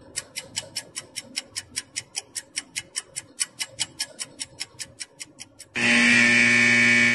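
Quiz countdown-timer sound effect: fast clock-like ticking, about five ticks a second, then near the end a loud steady buzzer tone lasting about a second and a half, marking time up.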